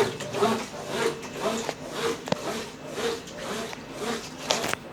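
Consul Facilite 10 kg washing machine in its wash stage, churning bedding and towels in water with a rhythmic swish about twice a second. There are a few sharp clicks about halfway through and near the end.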